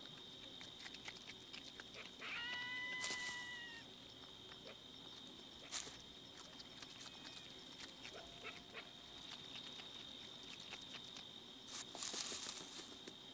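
A swift fox gives a drawn-out, even-pitched whining call, then a shorter, lower one a few seconds later. Light taps and a brief rustle near the end come from its movement over rocks and leaves. A steady high-pitched drone runs underneath.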